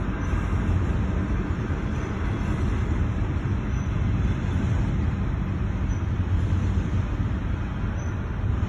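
CSX freight train's cars rolling past a level crossing, a steady low rumble heard from inside a stopped car.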